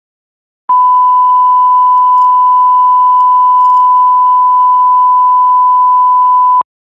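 Steady 1 kHz line-up test tone, the reference tone that runs with colour bars at the head of a video tape, with faint tape hiss beneath. It starts abruptly under a second in and cuts off just before the end.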